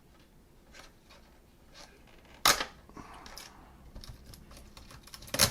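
Small cardboard product box being opened by hand: faint handling rustle broken by two sharp snaps, one about two and a half seconds in and one near the end.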